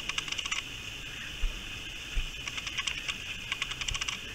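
Wallaby chewing a piece of KFC fried chicken: bursts of rapid crisp clicking crunches, several a second, with pauses between bursts. Two dull low thumps come about halfway through.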